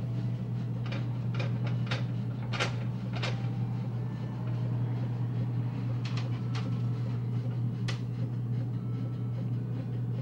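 A steady low hum, with about eight light clicks and taps, most of them in the first three seconds, as balls of cookie dough are set out on a metal baking sheet.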